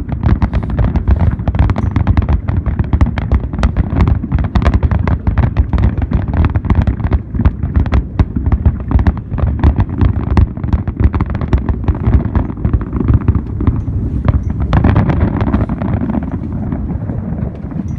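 Fireworks display: a dense, rapid string of bangs and crackles over a constant low rumble, thinning out about fifteen seconds in to a steadier rushing noise.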